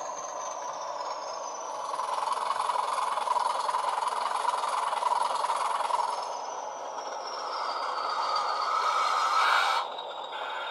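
Class 20 diesel locomotive sound played by an ESU LokSound HiFi decoder through the model's small speaker: the engine running with a whine that falls in pitch as the model slows. It grows louder near the end, then cuts off sharply just before the loco stops.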